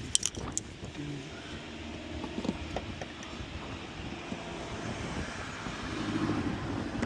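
Three sharp metallic clinks in the first half second, then a few quieter knocks, from hand tools working on a car's front suspension over a low steady rumble.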